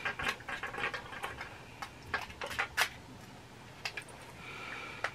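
Blind-box pin packaging being handled and opened by hand: scattered small clicks and taps, with a soft rustle near the end.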